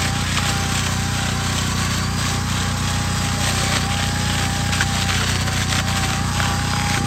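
Chainsaw running steadily at high revs while carving into wood, with a constant whine and a continuous spray of cutting noise.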